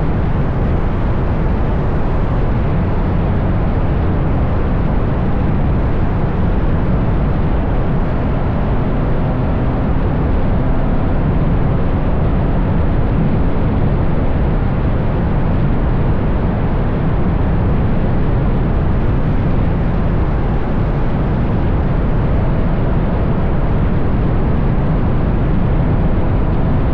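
Steady, heavy wind buffeting and tyre roar from a Ferrari GTC4Lusso cruising at road speed, picked up by a microphone mounted outside the car, with the engine's drone faintly audible beneath it.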